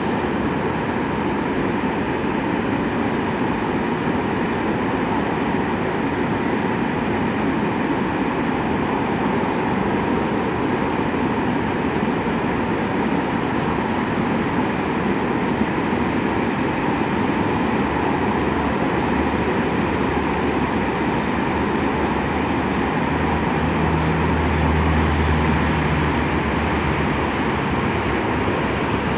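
Freight train wagons rolling steadily past on the track, a continuous rumble and rail noise, with a deeper low rumble swelling for several seconds late on.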